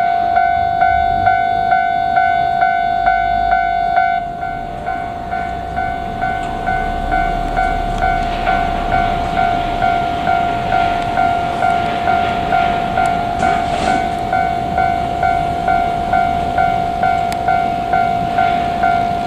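Electronic level-crossing warning bell ringing steadily, about two dings a second. From about six seconds in, a JR Kyushu 817 series electric train adds a rising rumble and rail noise as it approaches and runs by.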